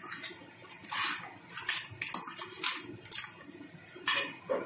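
Crab pieces being mixed by hand into a wet masala paste in a metal bowl: irregular wet rustling of the paste, with the shells clicking against the bowl.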